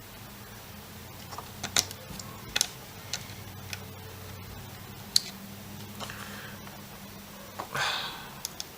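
Scattered light clicks and taps of small motor screws and a screwdriver being handled on a quadcopter frame, over a low steady hum, with a brief rustle near the end.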